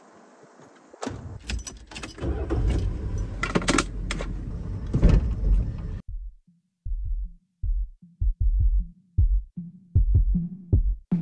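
Keys jangling and a van's engine starting and running with a deep rumble, which cuts off suddenly about six seconds in. Short, stuttering low bass pulses follow as electronic music begins.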